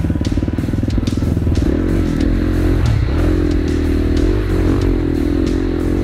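KTM 350 SX-F single-cylinder four-stroke dirt bike engine revving hard under load on a steep climb, its pitch rising about two seconds in, dipping briefly around three seconds, then held high.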